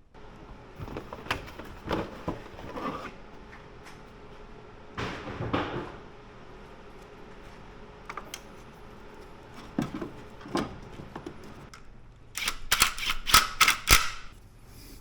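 Clicks, knocks and scrapes of hand work on the engine's valve cover, with a quick run of loud sharp clicks near the end.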